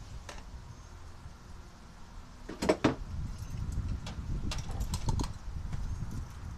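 Air hose and fittings being handled: a loud cluster of sharp clicks nearly three seconds in and several lighter clicks a couple of seconds later, over a low rumble of handling noise.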